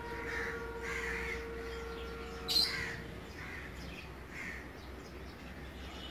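Crows cawing repeatedly in short calls, with one sharp, louder sound about two and a half seconds in.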